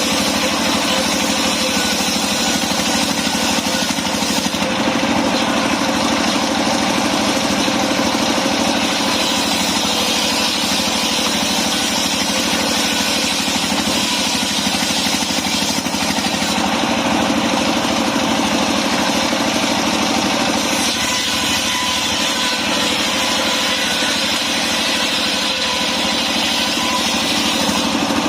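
Engine of a mobile circular sawmill running steadily, with small shifts in its higher sound about 5 and 17 seconds in.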